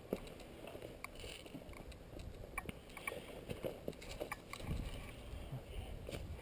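Faint crackling and rustling of dry grass and twigs as a player moves low through brush, with a low rumble of wind on the microphone.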